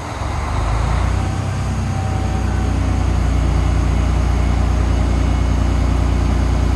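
A heavy truck engine speeds up about half a second in, then runs steadily at raised revs, typical of an engine powering a hoist during a lift.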